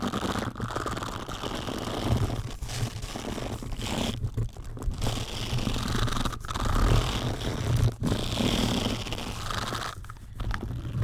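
Rubbing and scraping directly on a microphone, close up, with a low rumble of handling noise, in strokes broken by several brief pauses.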